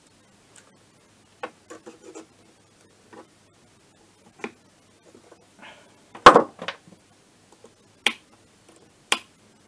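Scattered small metal clicks and scrapes of a circlip being worked onto a scooter engine's crankshaft, with the loudest clatter about six seconds in.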